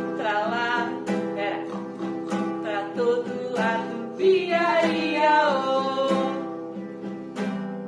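Children's song sung to strummed acoustic guitar, with a final strummed chord left ringing near the end.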